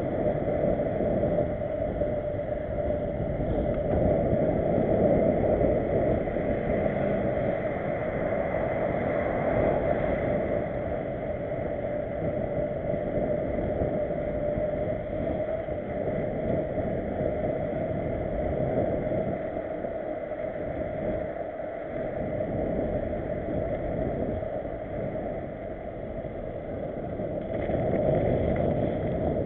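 Steady rushing noise of a mountain bike being ridden at speed, picked up by a cheap bike-mounted camera: wind against the microphone mixed with tyres rolling on asphalt, a little louder near the end as the bike comes onto a dirt track.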